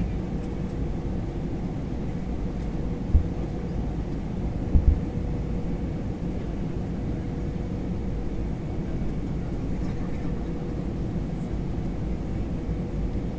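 Airbus A321 cabin noise: a steady low rumble with a faint steady hum. Two brief low thumps come about three and five seconds in.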